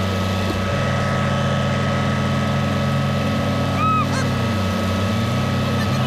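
Heavy diesel paving equipment running steadily. The engine note shifts slightly about a second in and again near the end, and a brief high chirp comes a little before four seconds in.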